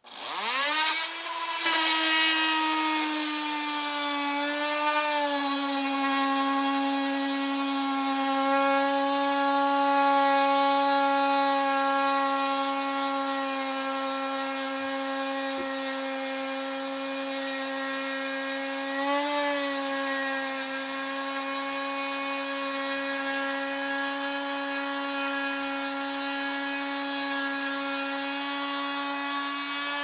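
Dremel Trio rotary tool spinning up and running with a steady high whine as its spiral bit cuts through a weathered wooden board. The pitch dips briefly twice, around five and nineteen seconds in, as the bit takes more load.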